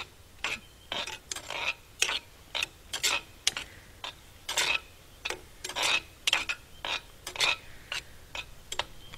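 A long-handled spoon scraping and knocking against a pan as food is stirred on a camp stove, in short, uneven strokes about twice a second.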